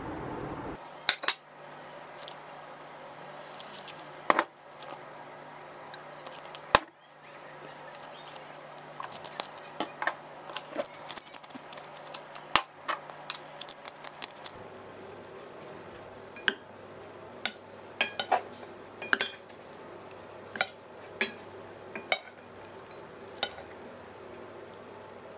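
Metal utensils clinking and scraping against a stainless steel mixing bowl as a cold pasta salad is tossed, in scattered sharp clinks at an uneven pace.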